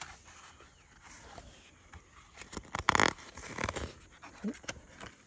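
A page of a picture book being turned: a rustle and flap of paper about three seconds in, with small taps and clicks of handling around it.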